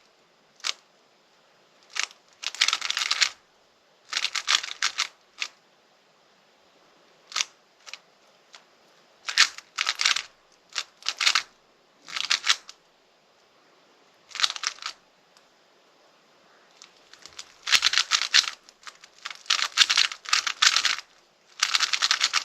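Plastic speedcube being turned by hand: quick runs of clicking, clacking layer turns come in short bursts, with brief pauses between them while the solver looks for the next pieces.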